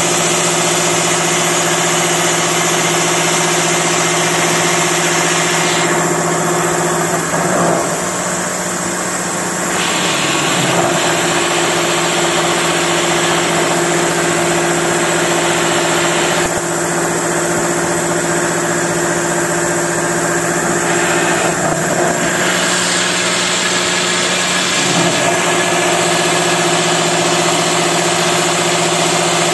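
Vertical milling machine cutting the bore of a large metal die ring: a steady, loud spindle hum with a hiss of cutting noise over it. The higher hiss drops away twice for a few seconds and the hum shifts slightly as it does.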